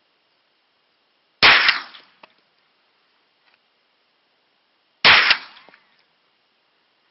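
Two single shots from a Hi-Point 995TS 9mm carbine, about three and a half seconds apart, each dying away over about half a second.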